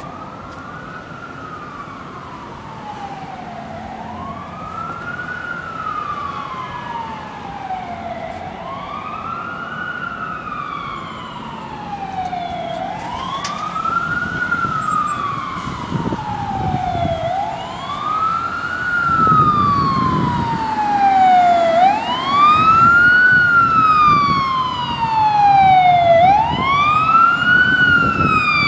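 Emergency vehicle siren in wail mode: a pitch that rises quickly, then falls slowly, repeating about every four and a half seconds and growing louder as the vehicle approaches. A low traffic rumble comes in about halfway through.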